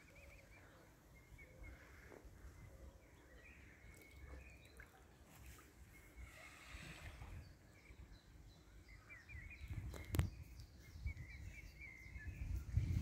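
Faint outdoors ambience with soft, high bird peeps coming and going over a low rumble, and a single sharp click about ten seconds in.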